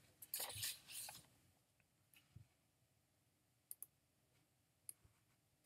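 Near silence broken by a few faint, sharp computer mouse clicks, one of them a quick double click, with a brief soft noise at the start.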